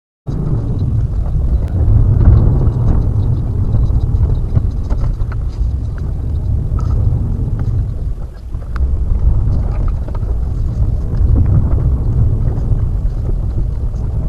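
Car driving, recorded by a dashcam inside the car: a steady low rumble of engine and road noise that cuts in abruptly.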